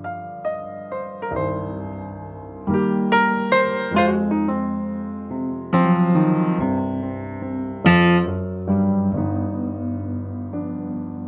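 Grand piano playing blues: struck chords and single notes, each ringing out and fading before the next.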